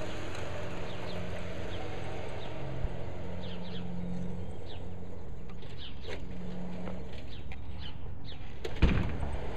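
Garden-scale model train running on its track, a steady low rumble with a faint motor hum, while birds chirp repeatedly in the background. A single sharp thump comes near the end.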